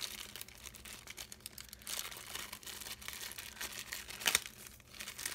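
Crinkling of small plastic packaging bags as camera accessories are handled and unwrapped, an irregular crackle with louder bursts about two seconds and four seconds in.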